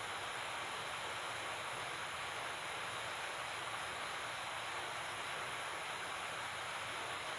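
Steady hiss of background noise, even and unchanging, with no card handling or other distinct sounds.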